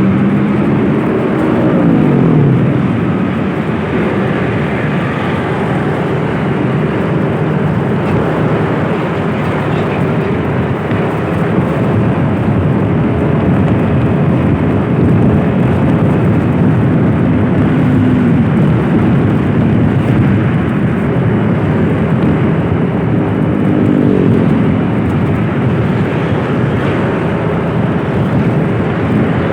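Motor vehicle on the move: a steady engine and road noise, with the engine's pitch dropping about a second in and changing again near the end.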